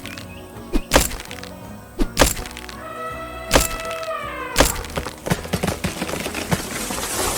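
Cartoon soundtrack music with sharp knocking hits about once a second, a falling tone in the middle, and a rapid run of small clicks near the end.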